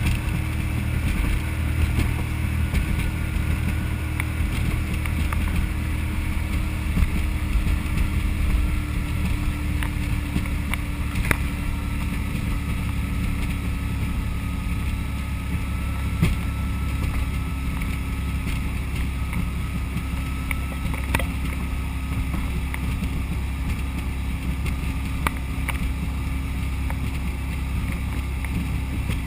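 Boat's engine running steadily underway, its pitch easing down slightly over the first half, with wind on the microphone and a few light knocks.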